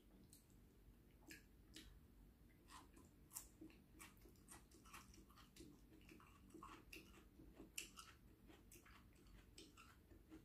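A person chewing food, faint, with irregular small clicks and smacks about twice a second.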